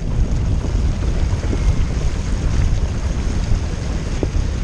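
Wind noise on the microphone mixed with water rushing past a kayak moving at speed, a steady, deep rumble.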